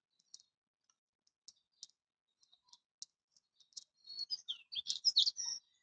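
Small birds chirping: scattered short, high chirps, then a quicker, louder run of gliding calls about four seconds in.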